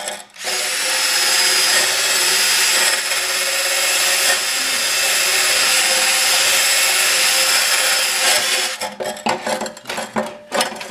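Cordless drill spinning a wire wheel against an aluminum irrigation pipe, scrubbing the oxidation off the metal for about eight seconds. It then stops, followed by several clattering knocks near the end.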